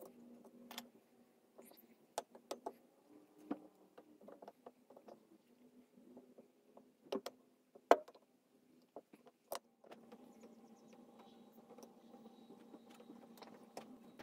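Scattered sharp clicks and taps, the loudest about eight seconds in, over a faint steady hum.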